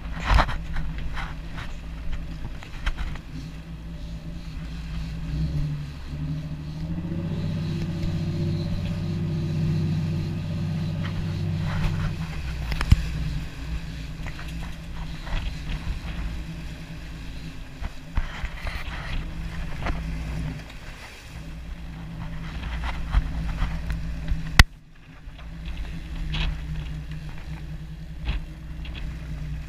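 Sportfishing boat's engines running under way, with water rushing in the wake and wind on the microphone. The engine note grows louder and fuller for several seconds about a third of the way in, then eases back. There are scattered short knocks and clicks.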